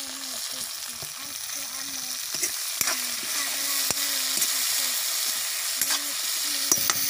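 Bitter gourd pieces sizzling in hot oil in a kadai, stirred with a steel spoon that scrapes and clicks against the pan a few times.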